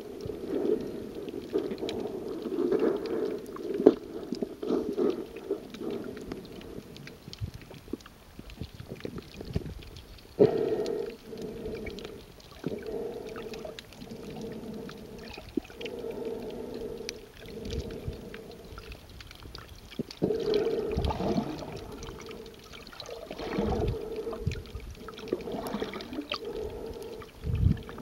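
Muffled underwater water noise picked up by a waterproof camera held below the surface: irregular gurgling and sloshing that swells and fades, with a few low thumps in the second half.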